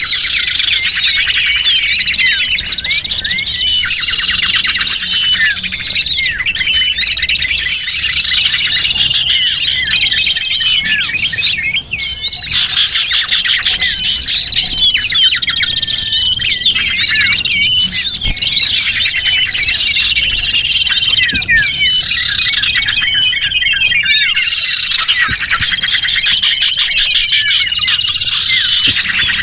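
Dense chorus of small birds, many calls overlapping: rapid chirps and trills mixed with short high whistled notes, without pause. It is a recording of small-bird calls used as a lure to draw small wild birds in.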